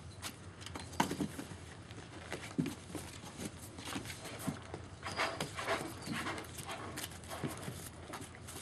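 German Shepherd puppies scuffling and play-fighting on shredded paper bedding in a plastic pool pen: a busy run of paw scratches, paper rustles and small knocks, busiest in the middle, with a few short low puppy grunts.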